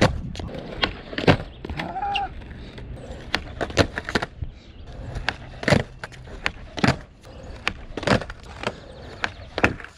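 Skateboard on concrete during backside flip attempts: the tail popping, the board clacking down onto the ground and wheels rolling, in many sharp separate knocks.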